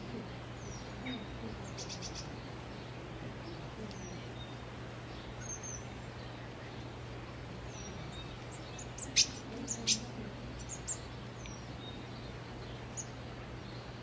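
Outdoor ambience with small birds chirping in the background: short, high, falling chirps every second or two over a steady low hum. A few sharp, louder clicks come about nine to eleven seconds in.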